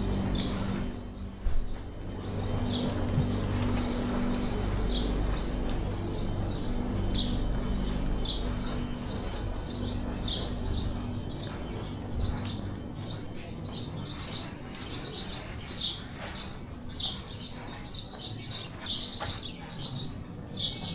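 Small birds chirping, many short high chirps in quick succession that come thicker in the second half, over a low steady hum that fades out about halfway through.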